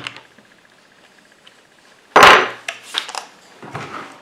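A cordless mini chainsaw being handled: a loud hard knock about two seconds in, then several lighter clicks and taps.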